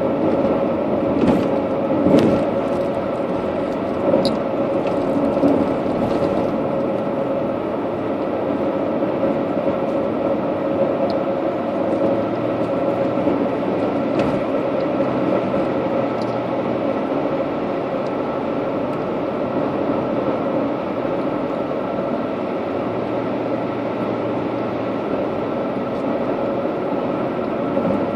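Steady road and engine noise of a car being driven, heard inside the cabin, with a constant hum. A few sharp knocks or rattles come through in the first several seconds and a couple more about halfway.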